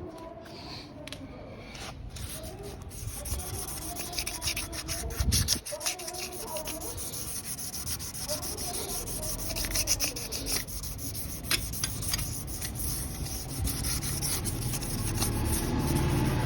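Hand sanding or abrasive rubbing: a run of rough scraping strokes on a hard surface, getting louder toward the end.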